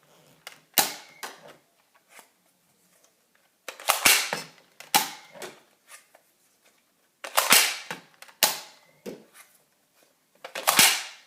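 Nerf Dart Tag pistol being fired over and over: a sharp snap with each shot, every second or few, some in quick pairs, with fainter clicks between.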